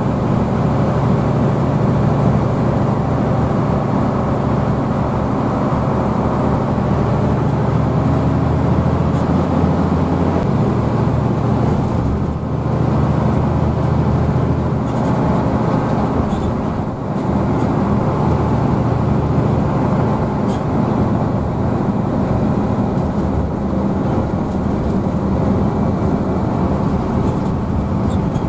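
Diesel engine of a Hino AK bus running under way, heard from inside the passenger cabin, with a steady low drone over road noise. The engine note shifts about ten seconds in and dips briefly twice a few seconds later.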